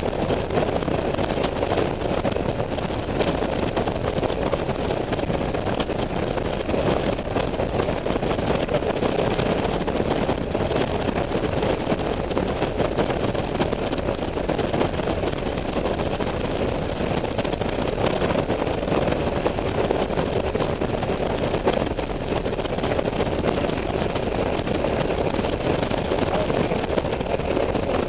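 Honda Silver Wing scooter cruising steadily at highway speed: an even engine drone under a rush of wind and road noise, with no change in speed.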